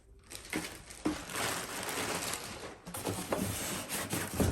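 Packaging rustling and crinkling as the box contents are handled, with scattered small clicks and knocks, starting about a third of a second in.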